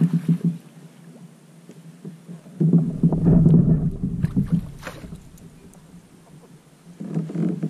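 Noise from a kayak on the water, coming in bursts: a loud one about two and a half seconds in that lasts some two seconds, and another starting near the end.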